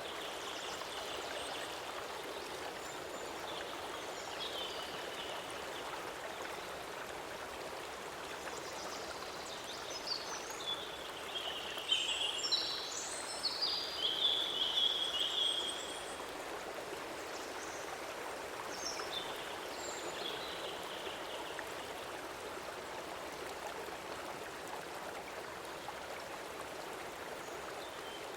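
Stream water flowing with a steady rushing. About halfway through, a few seconds of high chirping calls rise over it, then fade.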